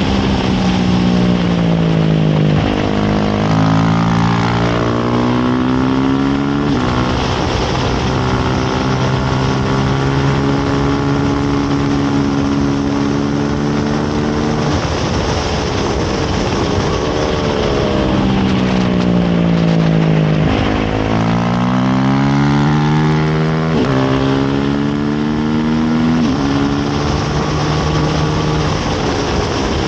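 Racing motorcycle engine under hard throttle, its pitch climbing as it accelerates and dropping in sudden steps at each upshift, about 3, 4 and 7 seconds in and again near 24 and 26 seconds. Between about 15 and 21 seconds it winds down as the bike slows for a corner, then climbs again. Wind rush on the onboard microphone throughout.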